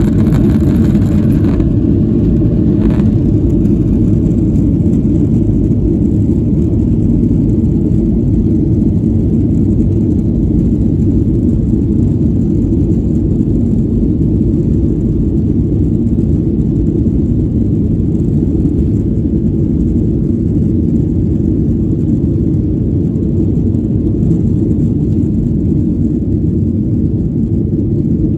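Cabin noise of a Boeing 737-700 on its takeoff run, its CFM56-7B turbofans at takeoff thrust: a loud, steady, deep rumble with the rush of air over the airframe. A higher hiss drops away about a second and a half in.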